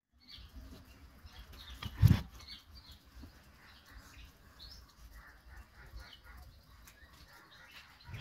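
Small birds chirping in the evening: many short, scattered chirps from several birds, over a low rumble. One loud thump about two seconds in.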